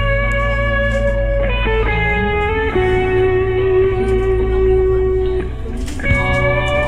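Background music: a guitar-led instrumental passage of a gospel song, long held notes over a steady bass, changing chord a few times.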